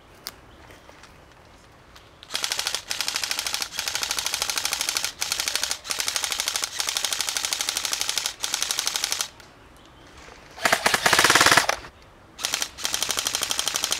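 M4-style airsoft rifle firing full-auto, a fast mechanical rattle in long bursts of one to two seconds with short breaks, starting about two seconds in. About eleven seconds in comes a louder, shorter burst with a falling whine under it.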